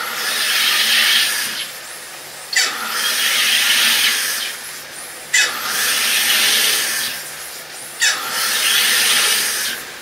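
SodaStream soda maker injecting CO2 into a bottle of water in four presses of about two seconds each, each opening with a sharp buzz and going on as a loud hiss.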